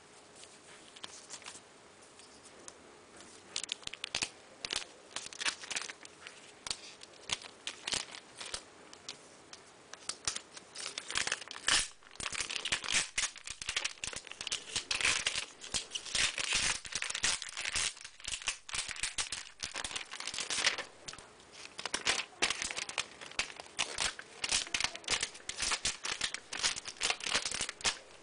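Packaging being handled and opened, crinkling and tearing in irregular crackles that grow much busier about ten seconds in.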